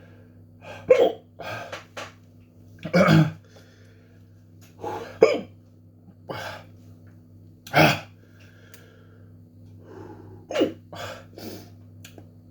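A man hiccuping repeatedly, short sharp hics coming every one to two seconds at an irregular pace. The hiccups were brought on by swallowing an extremely hot chili sauce.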